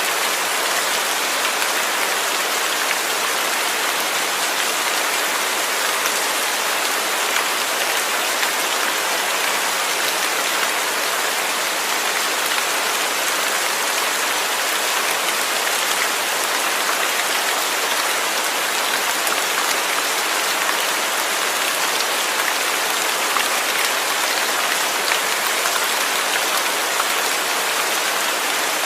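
Steady rain falling, an even hiss with the fine patter of many drops hitting a surface.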